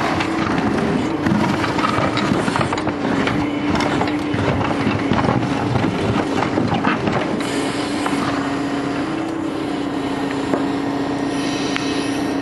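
Mini excavator running steadily with a constant hum, its bucket scraping and knocking through earth and stones as it digs a trench.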